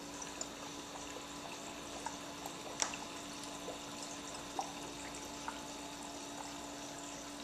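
Reef aquarium water circulation: water trickling and dripping over a steady pump hum, with a few sharper drip-like ticks, the loudest about three seconds in.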